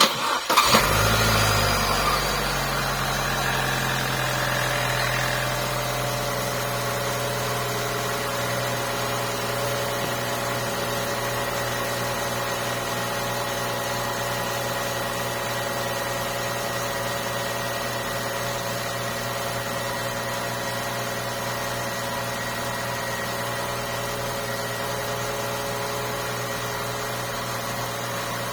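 2014 Holden Cruze's petrol engine starting, running briefly at higher revs, then settling into a steady idle.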